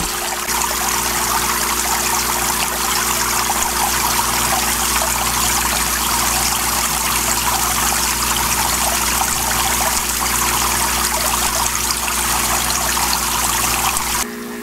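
Water from the ice maker's pump running in a steady, even rush down the stainless evaporator plates of a Hoshizaki KM-630MWB commercial ice maker, with a steady low hum beneath. The water sound cuts off suddenly about 14 seconds in.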